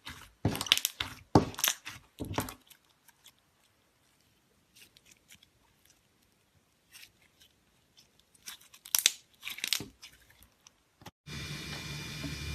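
Slime being squeezed and worked by hand, giving crisp crackling crunches in clusters with sparse small clicks between. Near the end the sound cuts abruptly to a steady hiss with a low hum.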